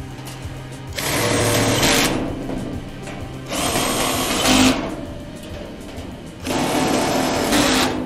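Power drill or driver whirring in three bursts of about a second each, as when driving screws during assembly.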